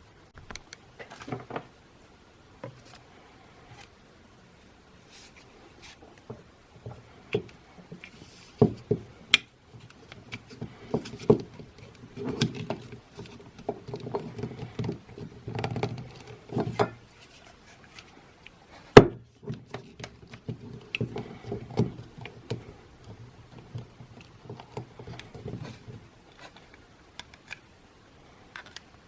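Scattered clicks and knocks of small hard objects being handled, the sharpest about two-thirds of the way through, with a low hum running through the middle stretch.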